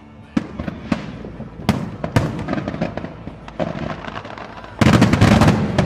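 Aerial fireworks going off: single sharp bangs spaced about half a second to a second apart, then a sudden, louder rapid string of bangs and crackle about five seconds in.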